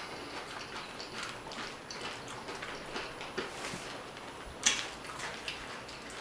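Tortilla-chip nachos being pulled apart by hand and chewed: a scattered run of small crisp crackles and clicks, with one sharper snap a little past the middle.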